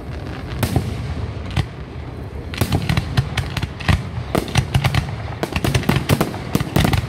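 Aerial fireworks shells bursting: a few separate bangs in the first couple of seconds, then a dense, rapid run of bangs from about two and a half seconds in.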